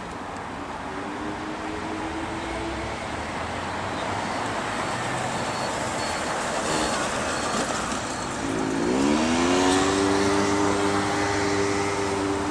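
Road traffic at a pedestrian crossing: a vehicle engine running, rising in pitch about two-thirds through as it pulls away, then holding a steady note.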